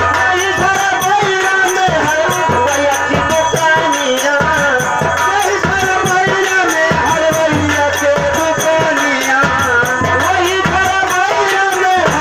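Amplified live nautanki folk-theatre music: a singer at the microphone over a steady drum beat, with a fast, even, high ticking percussion running underneath.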